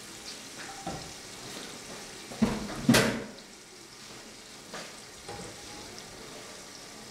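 Onions sizzling steadily in hot oil in a frying pan, with a few knocks of a plastic slotted spatula against the pan, the loudest about three seconds in.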